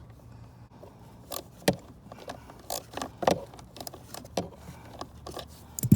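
Irregular metallic clicks and scrapes of a socket wrench working a small blower motor mounting bolt loose, with a sharper click near the end.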